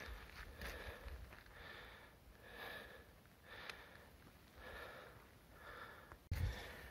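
A person breathing hard close to the microphone, about one breath a second, out of breath after a steep uphill climb, with low wind rumble on the microphone. Near the end a sudden louder noise cuts in.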